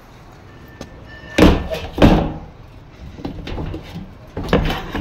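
Lid being put onto a plastic water tank: three sharp thumps, two close together about a second and a half in and one more near the end.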